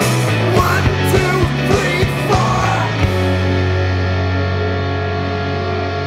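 Rock band playing loud, with drums, electric guitar, bass and vocals; about halfway through the drums stop and a held guitar chord rings on.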